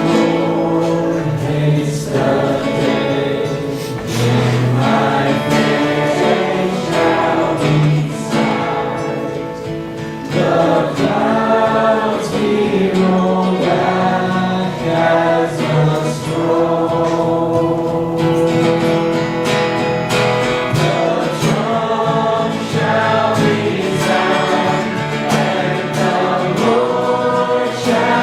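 Congregational worship song: a choir and congregation singing with guitar and band accompaniment.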